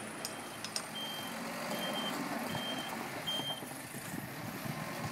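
Truck reversing alarm beeping four times, about one beep a second, over the truck's engine running.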